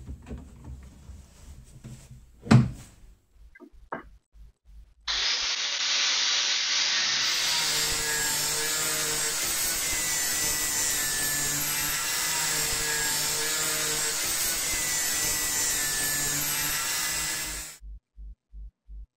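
Denzel angle grinder with a thin cut-off disc cutting through a high-speed-steel saw blade: a loud, steady grinding hiss over the motor's hum, starting about five seconds in and stopping abruptly near the end. Before it there are quiet handling sounds and one sharp knock.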